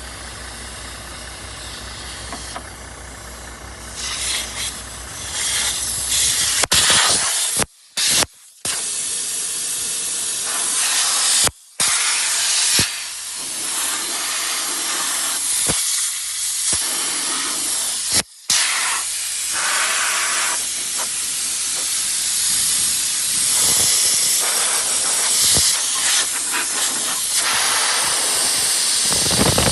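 Compressed air hissing loudly out of the semi truck's air system, rising in over the idling engine about four seconds in and running on in long rushes. It cuts out completely for a moment several times.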